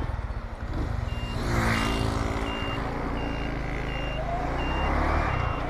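Super Power Cheetah 110cc single-cylinder motorcycle engine running at idle, then revving up near the end as the bike pulls off. Over it, a short high beep repeats about every three-quarters of a second, like a turn-signal buzzer.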